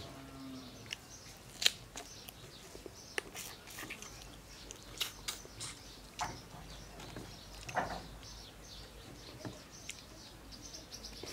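Eating sounds of a man chewing a cooked boal catfish head by hand: scattered wet mouth smacks and clicks, the sharpest about a second and a half in.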